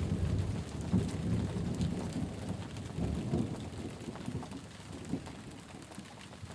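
Steady rain with scattered drops, under a low rumble of thunder that swells again about three seconds in and dies away toward the end.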